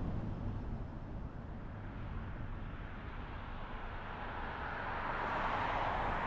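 Road and wind noise from a moving car: a steady low rumble, with a rushing hiss that swells louder from about five seconds in.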